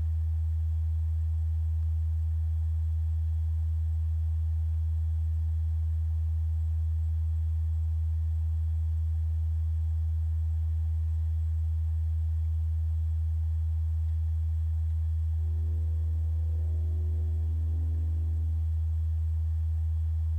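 Steady low electrical hum at one deep, unchanging pitch, with a few faint short tones higher up about three-quarters of the way through.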